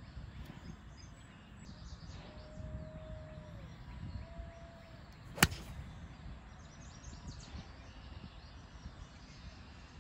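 A 4-iron striking a golf ball: one sharp, crisp click about five and a half seconds in.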